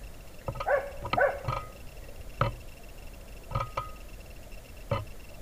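An animal's short, sharp barking calls, about eight of them: a quick cluster in the first second and a half, then single calls every second or so.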